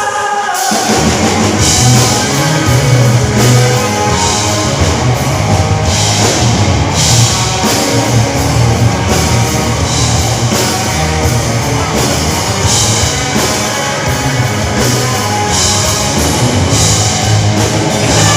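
Loud rock music with a drum kit and guitar over a heavy low end, playing without a break.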